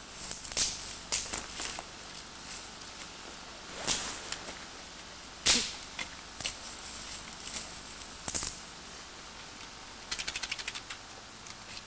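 Scattered sharp snaps and clicks of dry twigs being broken and handled, a few of them louder. Near the end, about a second of rapid ticking, roughly ten a second.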